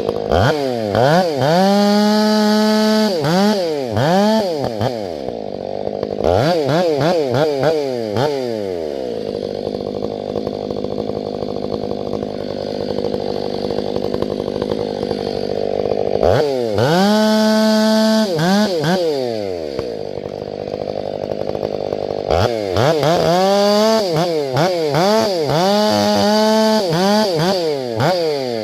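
Two-stroke chainsaw run up from idle to full throttle three times, its pitch wavering while held high, and dropping back to idle in between.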